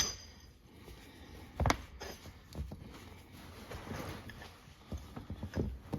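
Knocks and clinks of tow bar parts being handled while they are cleaned: a sharp metallic clink at the start, a heavier knock about a second and a half in, then several lighter taps.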